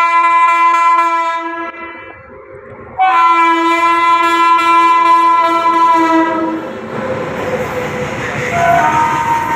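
Electric locomotive air horn sounding a long blast that fades away about two seconds in. It cuts in again sharply a second later and holds for about three and a half seconds. Then comes the rumble and clatter of the train running past on the track, with the horn starting up again near the end.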